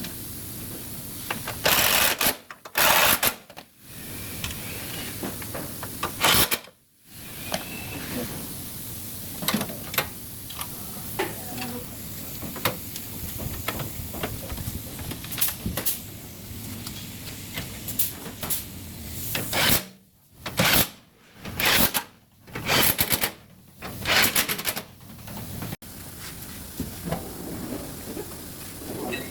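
Short tack welds along a car's front body panel: several brief, loud hissing bursts, two a couple of seconds in, one about six seconds in, and a quick run of five between about twenty and twenty-five seconds, over a low steady background.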